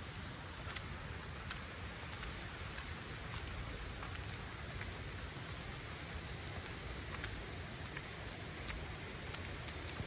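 Steady patter of falling precipitation on surfaces, with many faint scattered ticks and a low rumble underneath.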